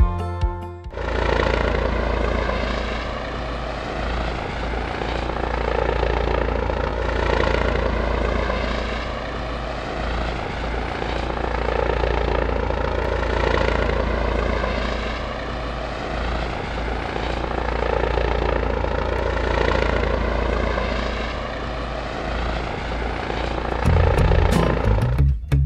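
Multirotor drone's propellers buzzing with a layered whine, steady apart from gentle swells every few seconds. Guitar music comes in near the end.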